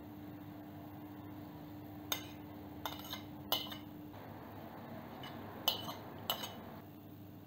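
A metal spoon clinking against dishes as chopped parsley and grated onion are scraped into a glass mixing bowl: a quick run of sharp clinks about two seconds in, then two more a little later.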